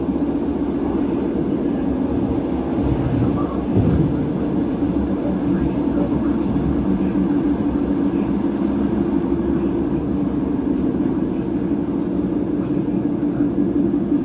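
Great Western Railway Class 158 diesel multiple unit running, heard from inside the carriage: a steady engine drone over rumbling wheel and rail noise, with a brief louder bump about four seconds in.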